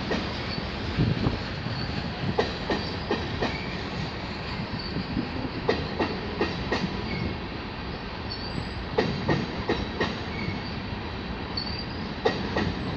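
Freight train of covered hopper cars rolling past: a steady rumble of steel wheels on rail, broken every two to three seconds by a quick group of wheel clicks.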